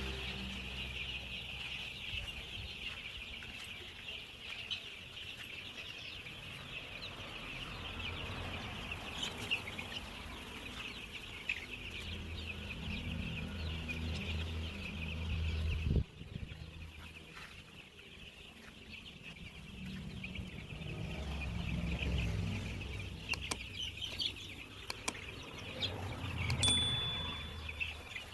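A brooder full of young Kaveri chicks peeping continuously in a dense chorus of high chirps, with low rumbling now and then.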